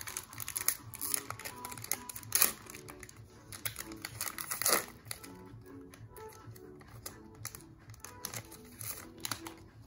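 Foil trading-card pack wrapper crinkling and tearing as it is ripped open by hand, a busy run of small crackles with two sharper, louder ones, one about two seconds in and one about halfway. Quiet background music underneath.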